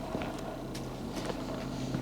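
Footsteps on a forest trail: irregular light crunches and snaps of leaf litter and twigs underfoot, over a steady low hum.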